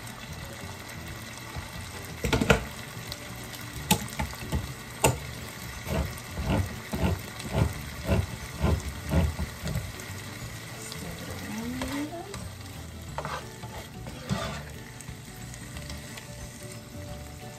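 Diced tomatoes and minced garlic sizzling in olive oil in a nonstick skillet. A utensil knocks and scrapes against the pan now and then as the sauce is stirred, in a quick run of about two strokes a second in the middle.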